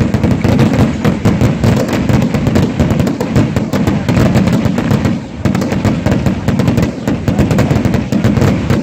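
Fireworks barrage: a dense, rapid run of bangs and crackles from many rockets and bursting shells, with a brief lull about five seconds in.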